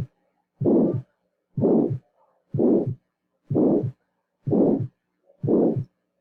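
Recorded heart sounds with a systolic murmur. A whooshing murmur fills the time between the first and second heart sounds, largely masking S1 and ending in S2. It repeats seven times, about once a second.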